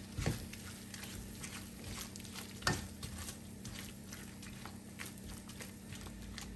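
Spoon stirring a seasoning mixture in a pot, with scattered clicks and knocks of the spoon against the pot, the loudest about two and a half seconds in.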